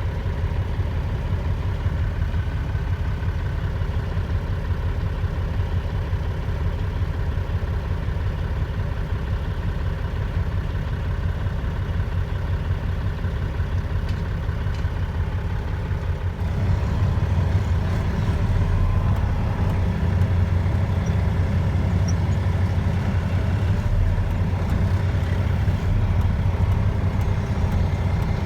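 Dump truck's diesel engine running steadily with a deep hum, getting a little louder about sixteen seconds in.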